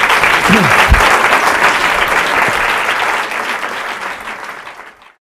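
Audience applauding, dense clapping from many hands that dies away and stops near the end.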